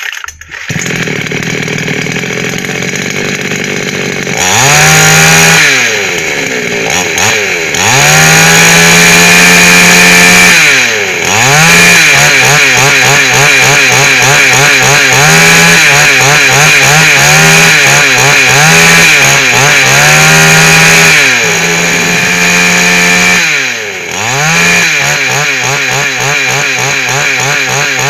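Chainsaw engine idling for a few seconds, then revved hard again and again: long full-throttle runs, a string of quick throttle blips in the middle, a drop back to idle a little past two-thirds of the way through, and more revving near the end.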